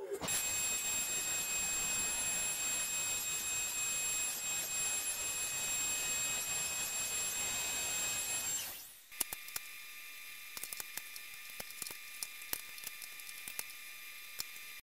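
A workshop machine running steadily, an even hiss with a thin high whine, until it dies away at about eight and a half seconds. After that, small wooden segments click and tap as they are handled and set down on the table.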